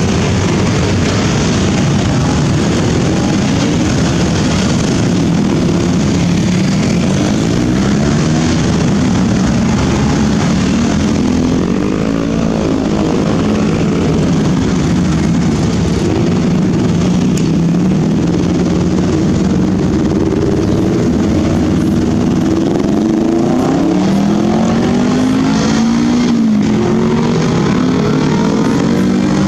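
Crowded traffic crossing a railway level crossing, mostly motorcycle and scooter engines, with cars among them, running steadily. Engines rev up and down, most plainly about midway and again near the end.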